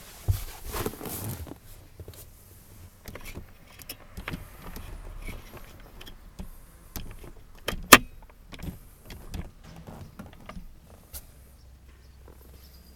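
Irregular rustling, clicks and knocks of people moving about and handling cushions and fittings in a fiberglass boat's cuddy cabin, with one sharp click just before eight seconds in.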